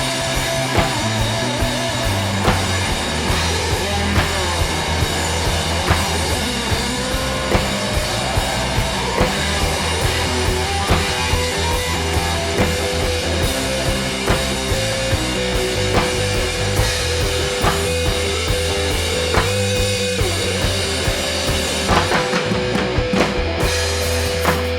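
A rock band playing live: guitar, bass guitar and drum kit. The drums keep a steady beat under a sustained bass line.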